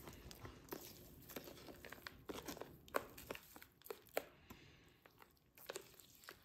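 White plastic spoon stirring a couscous mix freshly wetted with boiled water in a white bowl: faint, irregular scraping and clicking of spoon against grains and bowl.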